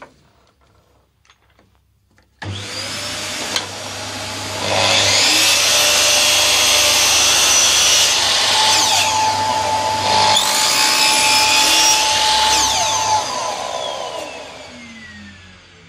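Makita sliding compound miter saw making a test cut: the motor starts abruptly a couple of seconds in and the blade cuts through wood under load. Its whine dips and climbs again partway through, then falls away as the blade winds down near the end.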